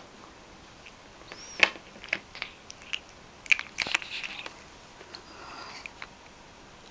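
A pet playing around a refrigerator: a scatter of light taps, knocks and scrapes, with the sharpest knocks about a second and a half in and twice more around three and a half to four seconds in. One brief high squeak comes just before the first loud knock.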